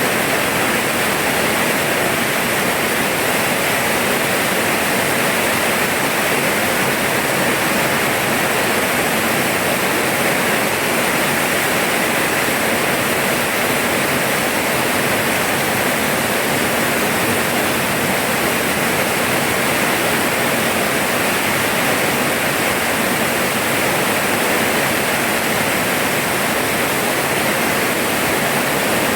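Steady, dense rainfall: an even hiss of rain with no let-up.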